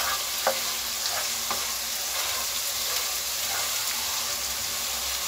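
Garlic, ginger and ajwain sizzling in hot oil in a nonstick kadhai as they brown, stirred with a spatula. A few light taps and scrapes of the spatula against the pan sound over the steady sizzle.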